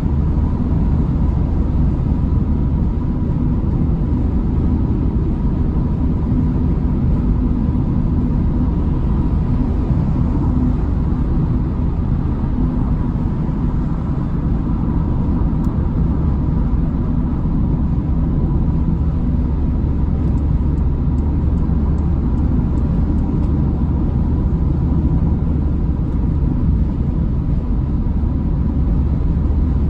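Steady low rumble of tyre and engine noise heard inside a car cruising at motorway speed, with a thin steady tone running through it.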